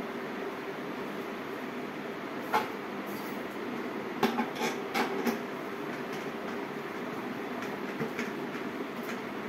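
Light clicks and knocks of a gold trophy cup's parts and plastic wrapping as it is handled: one about two and a half seconds in, a quick run of five or so around the middle, and a few fainter ones near the end. A steady mechanical hum runs under them.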